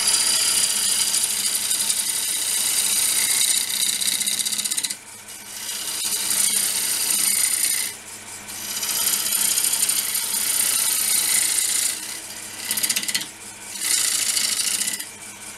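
A drill-bit cutter scraping shavings from a spinning green-wood bowl blank on a small 370 W wood lathe: a rushing, hissing cut in several passes. The cut breaks off briefly about a third of the way in, again about halfway, and twice near the end, while the lathe's motor hums steadily underneath.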